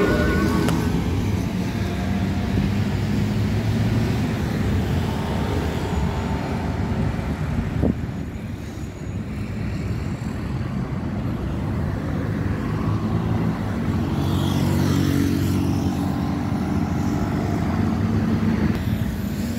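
Steady road traffic of buses and cars passing, with a rising motor whine near the start.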